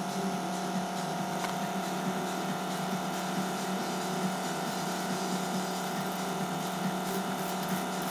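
Small can-type DC motor running at a constant speed, giving a steady low hum with a higher whine over it.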